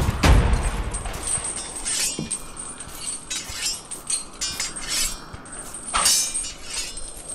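Footsteps on a dirt hiking trail: irregular crunching steps with light clinking and rattling. Wind buffets the microphone with a low rumble at the start.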